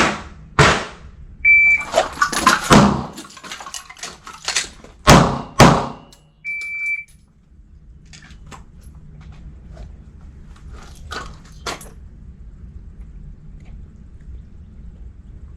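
Shot timer beeping a steady high tone twice, briefly about a second and a half in and again longer about six and a half seconds in. Between the beeps comes a string of pistol shots, the loudest pair near five seconds. Fainter shots follow in the second half.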